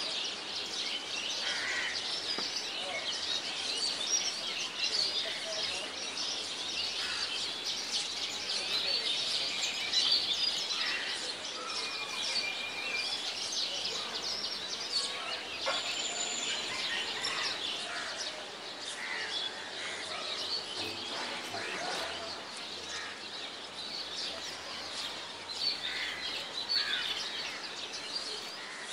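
Many small birds chirping and twittering at once, a dense, continuous chorus of short high calls with a few brief whistled notes, and occasional faint clicks.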